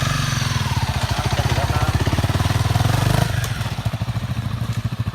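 Honda CRF250 dirt bike's single-cylinder four-stroke engine running hard under load, then easing off about three seconds in.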